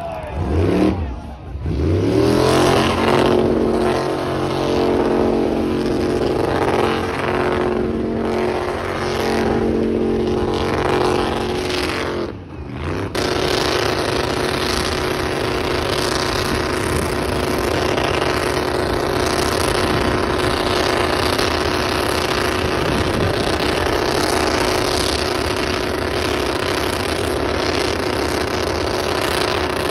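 Pickup truck engine held at high revs through a burnout, its rear tyres spinning. The revs sweep up near the start, dip briefly about twelve seconds in, then hold a steady high pitch.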